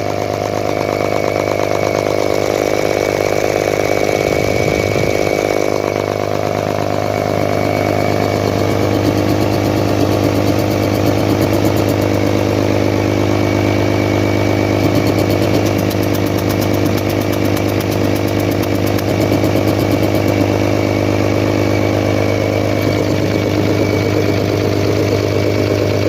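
Mercedes-Benz OM 352 A turbocharged inline-six diesel engine running steadily out of its vehicle, ticking over at a slow, even speed.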